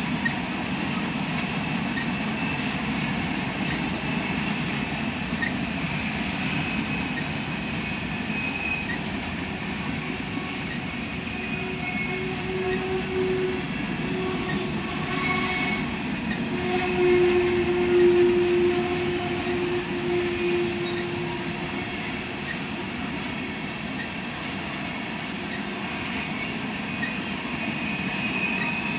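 Freight cars of a manifest train rolling past in a steady rumble. Pitched squeals from the wheels come and go over it and are strongest around the middle.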